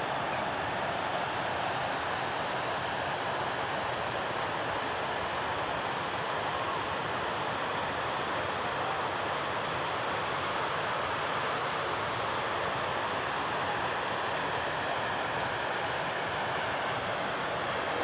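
Steady rush of river water running over rapids and rock ledges.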